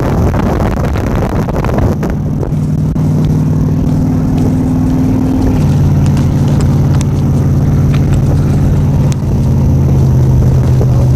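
A vehicle engine running steadily, its hum stepping to a different pitch about halfway through. Wind buffets the microphone in the first couple of seconds.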